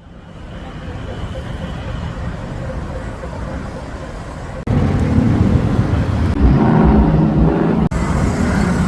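Street traffic: a steady low rumble of vehicle engines, jumping suddenly louder about halfway through and cutting briefly near the end.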